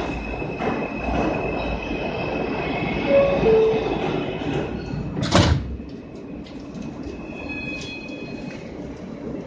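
New York City subway train running, heard from inside the car: wheels and motors rumble under a steady high wheel squeal. About three seconds in a brief two-note falling tone sounds. A loud sudden burst of noise comes about five seconds in, and after it the running noise is quieter.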